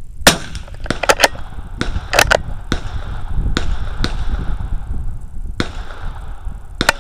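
Sharp cracks of .22 rimfire gunfire over wind rumbling on the microphone, the loudest about a quarter second in, followed by a string of further cracks, some coming in quick clusters.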